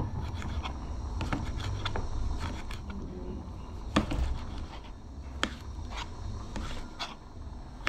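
Kitchen knife slicing a tomato held over a plate, with scattered sharp taps as the blade and pieces hit the plate; the loudest tap comes about four seconds in.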